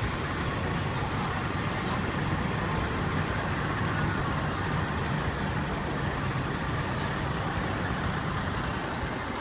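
Fire trucks idling at the curb: a steady low engine rumble under a constant wash of street traffic noise.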